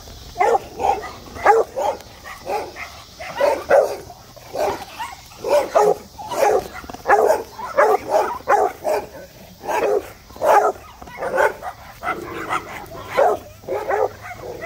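A dog barking over and over, roughly two barks a second, with short pauses between runs.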